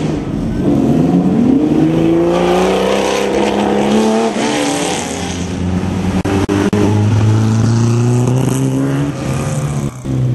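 Rally car engines revving hard as the cars power through a bend, the engine note climbing steeply, dropping and climbing again, then holding high and loud.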